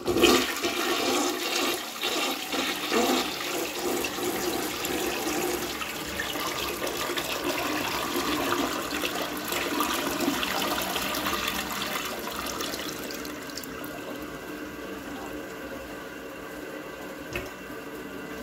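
A 1960 American Standard Cadet toilet with a tilt flush valve flushing: a sudden rush of water swirling down the bowl, easing after about twelve seconds into a quieter, steady flow of water as the tank refills.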